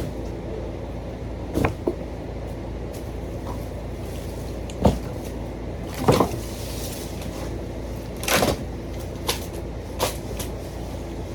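Irregular wooden knocks and thumps, about seven spread over several seconds, as deck framing boards are knocked loose and handled. One longer, rougher knock comes past the middle.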